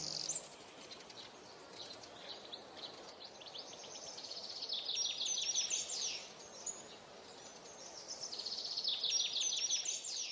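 Songbird singing high, rapid trills of chirping notes, one through the middle and another near the end, over faint outdoor background.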